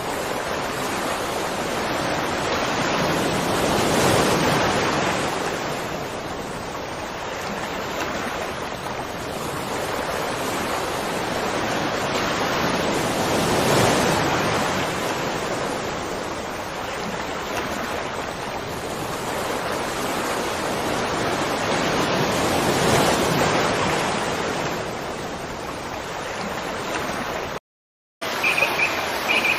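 Waterfall's steady rush of water, swelling and easing about every nine or ten seconds. Near the end it cuts out for a moment, and birds chirping come in after.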